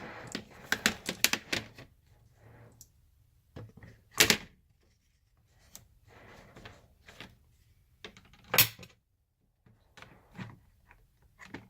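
Steel screwdriver bits clicking and clacking as they are handled, pulled out of and set back into a bit-organizer tray. There is a quick flurry of clicks at first, then two louder clacks about four and about eight and a half seconds in, with lighter clicks in between.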